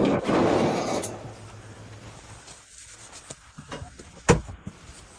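Rustling, scraping handling noise for about a second, then faint scattered clicks and one sharp knock about four seconds in.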